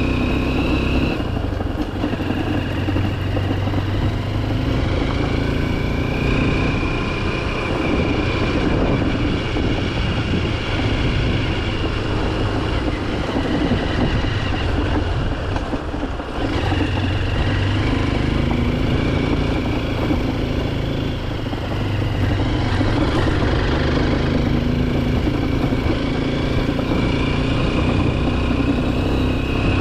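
Honda XR150L's single-cylinder four-stroke engine running under way, its note rising and falling with the throttle, with a brief dip about sixteen seconds in.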